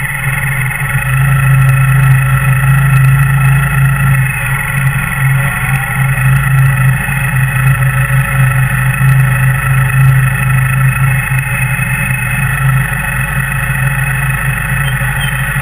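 Kawasaki W800's air-cooled parallel-twin engine running steadily at low revs as the motorcycle crawls in slow traffic, a close, even low rumble.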